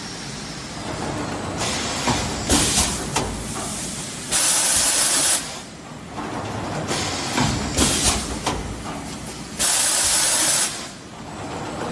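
LS-A6 fully automatic blow moulding machine running through its cycle over a steady mechanical hum. Each cycle has a clatter of pneumatic clicks and knocks, then a loud blast of hissing air about a second long, which is the blowing air being vented. The blast comes twice, about five seconds apart.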